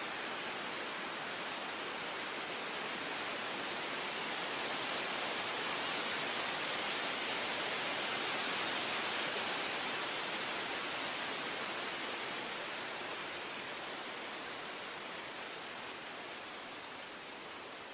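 Steady rushing water with no pitch or distinct events, swelling slightly midway and easing off toward the end.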